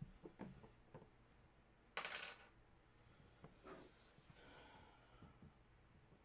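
Near silence with faint handling noises: a few soft knocks and clicks, and a brief rustle about two seconds in.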